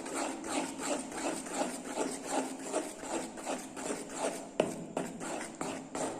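A thick toothpaste-and-glue slime mixture being stirred in a container, scraping and rubbing in a steady rhythm of about two to three strokes a second, with one sharper knock about two-thirds through.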